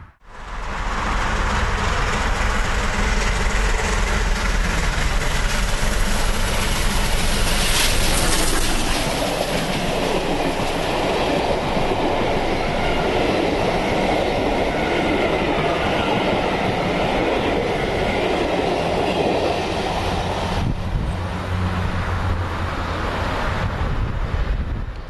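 Steam-hauled passenger train, led by Bulleid Battle of Britain class Pacific 34067 Tangmere, passing at speed close to the platform. Its coaches clatter over the rail joints, and the sound eases about 20 seconds in as the train draws away.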